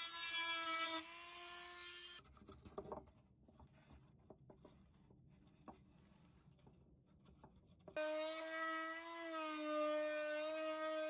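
Small hand-held rotary tool with a sanding drum grinding balsa wood, a steady high whine. It stops about two seconds in, leaving a quiet stretch with a few light clicks and knocks from handling the parts, then starts again about eight seconds in.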